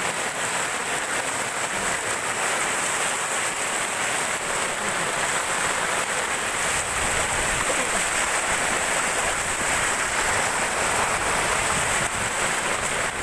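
Heavy tropical downpour: a steady, dense hiss of rain, with some low wind rumble in the second half.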